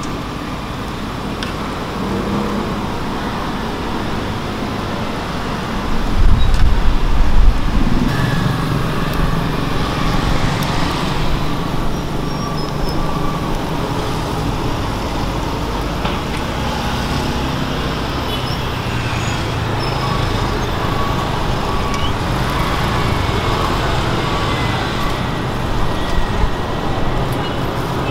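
Steady road traffic noise, with a louder low rumble about six seconds in that lasts about two seconds.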